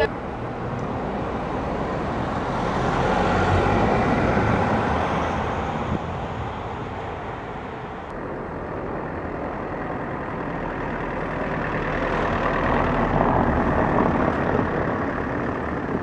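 Steady traffic rumble from vehicles passing, louder as they go by around four seconds in and again near the end.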